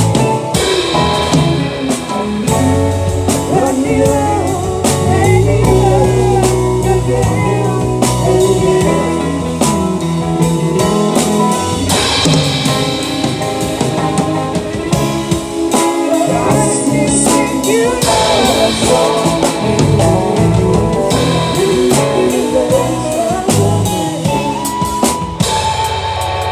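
Live band playing a slow, bluesy rock song, with drum kit, guitars and bass guitar.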